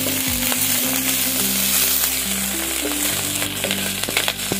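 Ajwain, ginger and green chillies sizzling in hot oil in a kadai as they fry, a steady crackling hiss, with background music.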